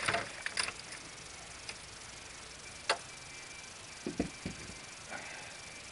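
A few sharp clicks and dull knocks from handling, over a faint steady insect trill.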